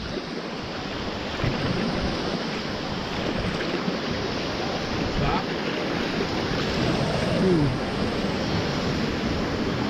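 Steady rushing and churning of a fast whitewater river around an inflatable raft.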